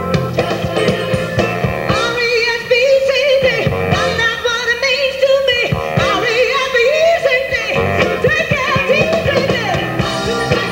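Live rock and soul band with electric guitar and a steady beat, a woman singing lead over it; her voice is strongest through the middle.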